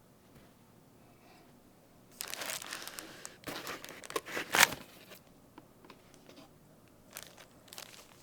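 Packaging wrap crinkling and tearing as it is handled, starting about two seconds in with a dense stretch that peaks just before the middle, then a few short crackles near the end.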